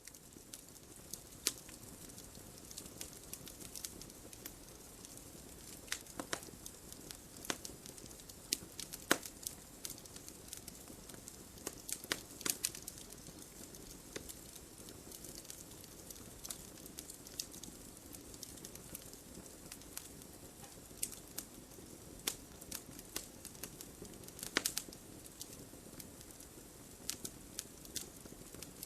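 Wood fire crackling: a steady low hiss with sharp pops and snaps at irregular intervals, a few louder ones standing out.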